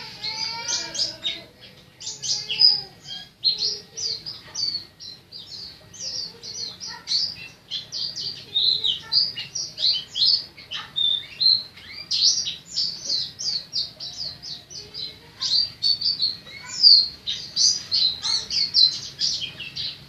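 White-eye (pleci) singing loudly in its native 'ngalas' forest song: fast, closely strung 'ciw' notes rising and falling in long rolling trills. This full-voiced song is the 'buka paruh' (open-beak) stage of a pleci in song.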